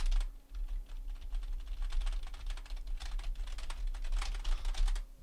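Fast typing on a computer keyboard, a quick run of key clicks with a brief pause about a third of a second in, picked up through a Samson Q2U dynamic microphone to show how it handles keyboard noise.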